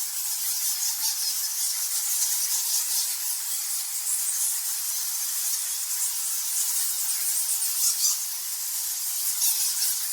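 A colony of bats chittering and squeaking continuously, a dense, high-pitched flickering chatter with nothing deep underneath.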